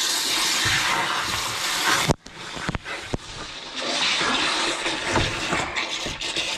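Water jetting from a freshly cut pipe under mains pressure, a loud hissing spray. It cuts off abruptly about two seconds in, two sharp knocks follow, then the spray hiss returns.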